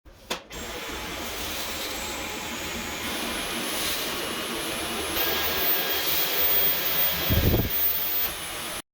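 Dyson V11 cordless stick vacuum running with a steady rushing noise and a high motor whine, after a click as it starts. The whine steps up in pitch about five seconds in, there is a low thump near the end, and the sound cuts off suddenly.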